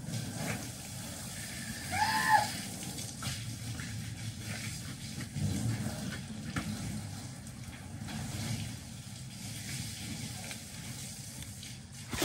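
Steady rain and wind noise, with scattered knocks and scrapes from someone clearing out a small timber cubby house. A short high-pitched cry comes about two seconds in.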